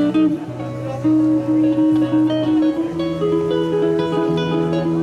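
Instrumental music led by a guitar, with a melody moving over lower held notes.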